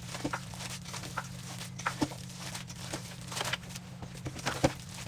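Hands kneading and squishing a raw ground-meat meatloaf mixture in a bowl, with irregular short wet squelches and clicks over a steady low hum.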